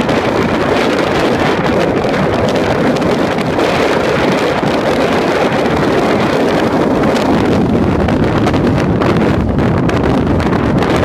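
Loud, steady wind noise buffeting the microphone of a 2013 Porsche Boxster moving at pace-lap speed, with no distinct engine note standing out.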